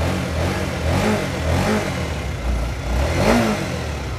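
Honda CBR150R's single-cylinder engine idling, blipped with the throttle three times in short revs that rise and fall back to idle.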